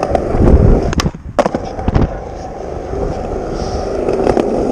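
Skateboard wheels rolling on concrete with a steady rumble; a little after a second in, a sharp pop of the tail, a brief quieter moment, then the clack of the board landing from a small jump.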